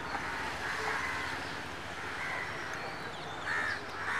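Crows cawing, several harsh calls spaced about a second apart, over steady outdoor background noise.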